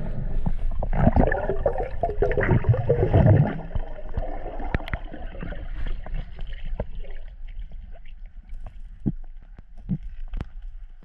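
Underwater gurgling and bubbling, muffled as through a waterproof camera housing, loudest in a dense rush from about one to three and a half seconds in, then quieter with scattered sharp clicks and knocks.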